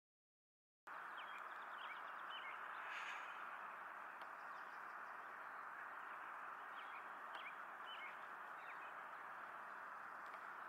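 Outdoor ambience: small birds chirping in short, repeated calls over a steady rushing background noise, starting about a second in.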